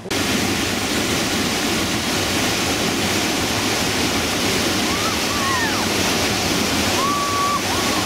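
Steady loud roar of whitewater: the class 5 Pillow Rock Rapid on the Upper Gauley River, high dam-release water pounding against the rock.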